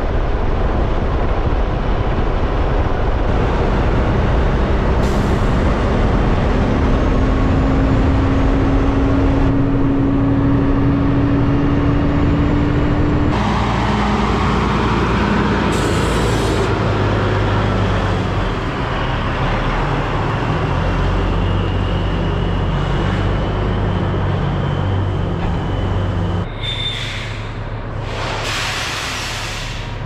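Kenworth semi truck driving, heard from outside the cab: loud wind and road noise over the diesel engine's drone, with a steady engine tone rising slowly in pitch for several seconds. Short hissing bursts come about halfway through and again near the end.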